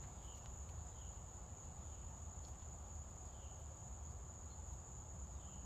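Steady, unbroken high-pitched drone of a chorus of insects, over a low steady background rumble.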